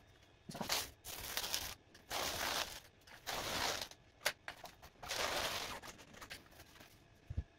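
Scalpel blade drawn through dense closed-cell foam in about five separate cutting strokes, each a short rasping scrape with brief pauses between passes.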